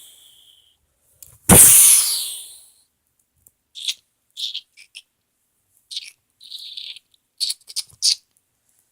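A loud burst of noise about a second and a half in, dying away over about a second, followed by a string of small plastic clicks and rattles from a toy rocket launcher being handled.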